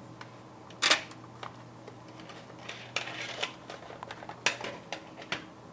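Plastic clicks and knocks from a Canon Selphy CP510 photo printer being handled and its ink cassette slid out. There is one sharp clack about a second in, then several lighter clicks later on, over a faint steady hum.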